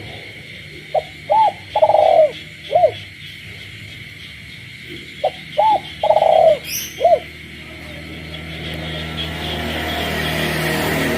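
Captive spotted dove cooing twice, each phrase about four notes, over a steady chorus of frogs. A low hum grows louder over the last few seconds.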